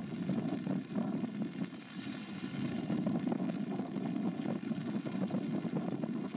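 Rain falling outdoors, with wind on the microphone: a steady rushing noise flecked with faint crackling.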